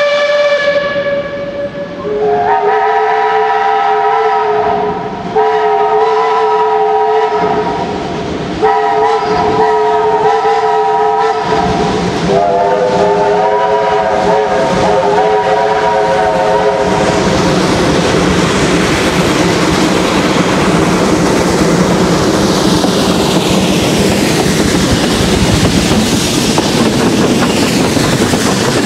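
Steam whistles of a five-locomotive steam train: one whistle note ends about two seconds in, then the whistles sound four long blasts, the last the longest. From about 17 seconds the steam locomotives pass close by, a loud, continuous rush and clatter of exhaust, running gear and wheels on rail.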